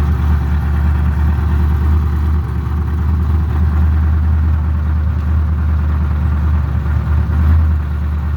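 Car engine idling, heard at the exhaust with long-tube headers, high-flow cats and a stock Ford muffler: a steady low rumble with a fast even pulse. The owner suspects the odd noise is something banging in a rusted muffler.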